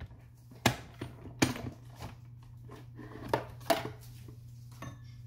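Hand-cranked die-cutting machine rolling a sandwich of plastic cutting plates through its rollers, with a few sharp clicks and knocks from the plates and crank.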